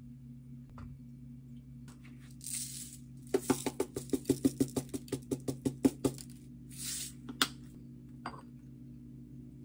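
Sprinkles rattling in a small shaker shaken over a drink: a quick, even rattle of about six shakes a second for roughly three seconds. Brief rustles come before and after it, and a single click near the end.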